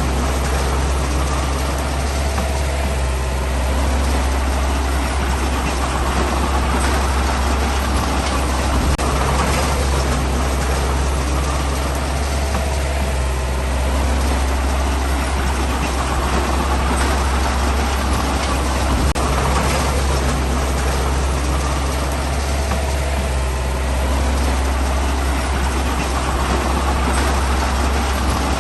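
Heavy diesel engine of earthmoving machinery running steadily, with a constant low drone, its sound swelling and easing about every ten seconds.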